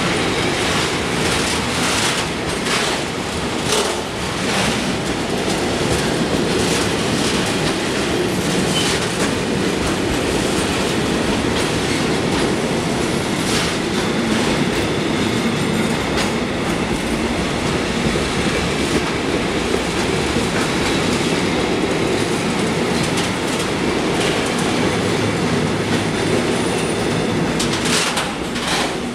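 Freight train of rail tank wagons rolling past close by at steady speed, a continuous rumble with the wheels clacking over the rail joints again and again.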